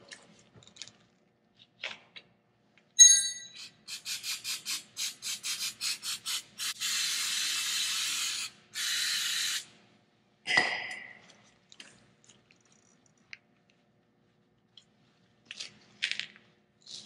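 Aerosol spray can hissing on the brake parts, first in a quick run of short spurts and then in two longer sprays. A sharp metallic clink comes before the spraying, and something clatters down about a second after it stops.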